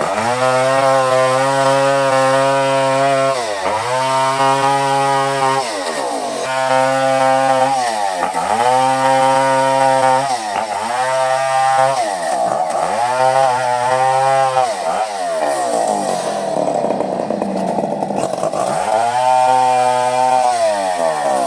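Two-stroke chainsaw cutting coconut wood at high revs. The engine pitch dips and recovers every two to three seconds, drops lower for a few seconds past the middle, then revs up again near the end.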